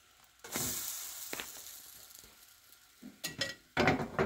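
A pancake flipped onto hot oil in a nonstick frying pan: a sudden burst of sizzling about half a second in that fades away, then a few short clicks and scrapes of the spatula against the pan near the end.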